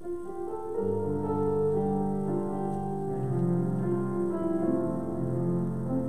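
Keyboard instrument playing slow, held chords, with lower bass notes coming in about a second in: the introduction to a closing hymn.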